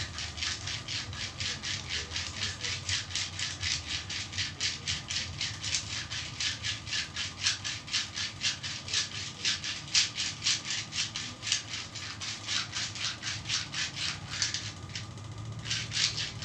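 Hands rubbing quickly back and forth over bare skin in a leg massage, a rhythmic swishing of about five strokes a second that pauses briefly near the end and then starts again.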